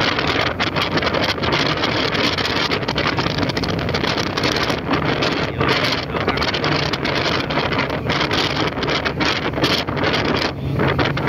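Superdong high-speed ferry under way: a steady engine drone and rushing noise, with wind buffeting the microphone in gusts.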